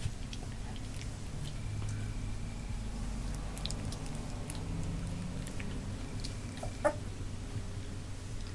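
Labrador puppies wrestling and mouthing each other on carpet: small chewing and scuffling sounds, with one short, sharp squeak about seven seconds in.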